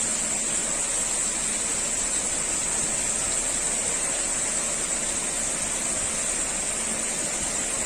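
Steady rushing noise of strong wind and heavy surf on a stormy beach, with a strong high hiss throughout.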